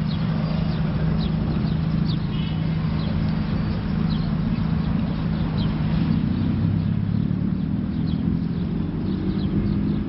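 Street traffic ambience: a steady low engine hum with scattered light clicks and ticks over it.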